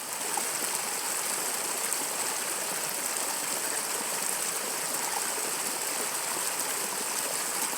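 Steady rush of falling water from a small desert waterfall.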